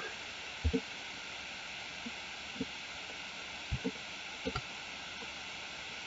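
Soft clicks of a computer mouse and keyboard, a few quick pairs spread over several seconds, over a steady hiss.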